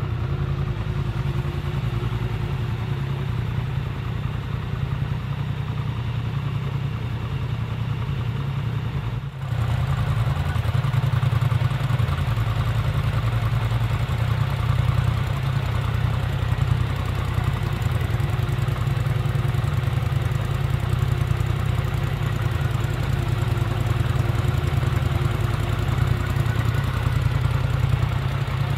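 Polaris Sportsman ATVs' parallel-twin engines idling steadily. There is a brief break about nine seconds in, and the idle is slightly louder after it.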